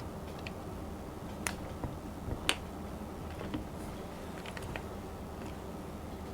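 Scattered sharp clicks and taps of an aluminium keyboard's parts being handled while it is taken apart, the loudest about two and a half seconds in, over a steady low hum.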